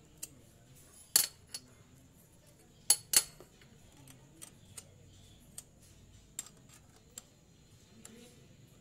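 Steel hand tools, a ring spanner and an L-shaped valve adjusting key, clinking against each other and the valve adjuster on a Yamaha Mio's cylinder head while the adjuster locknut is tightened after setting the valve clearance. Scattered sharp metallic clinks, the loudest about a second in and twice around three seconds in.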